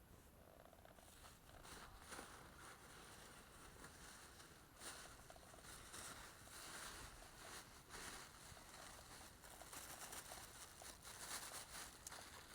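Faint, irregular crackling and hiss of wood burning in a small wood-gas camp stove.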